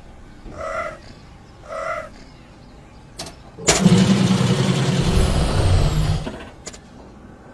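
Cartoon sound effects: two short pitched calls about a second apart, a click, then a loud rumbling, engine-like burst lasting about two and a half seconds that stops abruptly.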